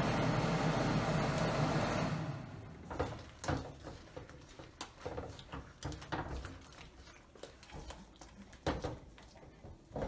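Battered fried chicken sizzling in a wok of hot sauce for about two seconds, then a spatula scraping and knocking against the wok in short, irregular strokes as the chicken is tossed in the glaze.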